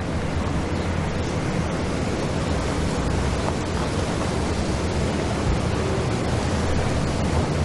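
Steady rushing outdoor background noise with a low rumble beneath it.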